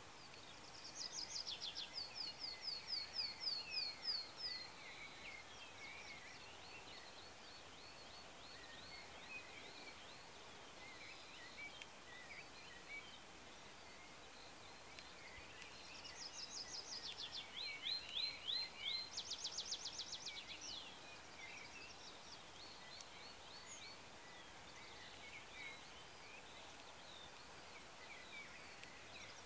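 Songbirds singing: one bird sings two loud songs of fast repeated high notes, one near the start and one about halfway through, over fainter calls of other birds.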